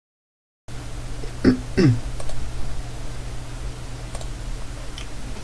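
Dead silence, then a desk microphone's low steady hum cuts in under a few scattered computer clicks. About a second and a half in come two short sounds that drop in pitch, the loudest thing here.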